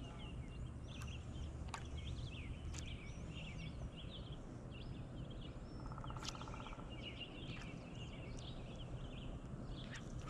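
Wild birds chirping and singing, many short calls throughout, over a low steady rumble of wind, with a few sharp clicks and a brief buzzy rattle about six seconds in.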